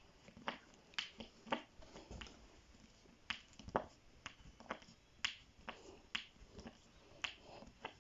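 Sharp, irregular clicks and light taps of metal door hinge parts being handled and fitted onto a flat-pack wardrobe door, about two a second.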